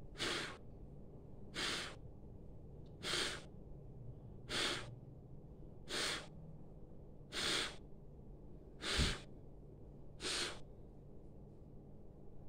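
A woman forcefully blowing her breath out through pursed lips as a pranayama breathing exercise: eight short hissing puffs, evenly spaced about one and a half seconds apart.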